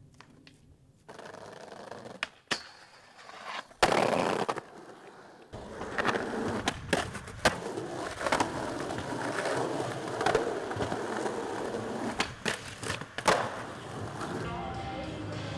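Skateboard wheels rolling over smooth concrete, broken by several sharp clacks and impacts of the board popping and landing.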